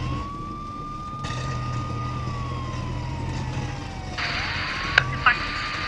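Police siren in a slow wail, heard from inside a vehicle's cabin over the low hum of its engine. The tone rises quickly, holds, slides slowly down and rises again about four seconds in. A hiss cuts in about a second in and grows louder near the end, with a couple of sharp clicks.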